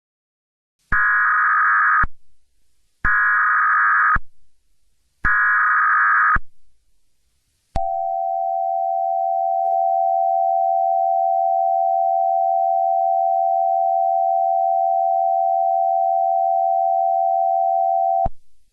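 Emergency Alert System alert: three short bursts of screeching SAME header data tones, about a second each. They are followed by the long steady attention tone, which holds for about ten seconds and then cuts off abruptly.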